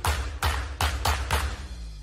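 Logo-reveal intro sting: a quick run of about five sharp percussive hits over heavy low bass, the last about a second and a half in, then a long fading ring.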